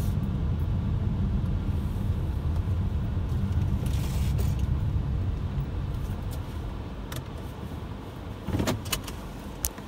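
Car heard from inside the cabin, driving slowly with a steady low engine and road rumble that dies away as it slows to a stop near the end. A few short clicks and knocks follow in the last couple of seconds.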